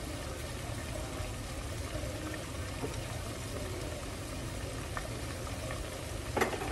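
Floured pieces of chuck steak frying in a pot of oil: a steady bubbling hiss, in oil that the cook thinks was not hot enough when the meat went in. A couple of light clicks near the end.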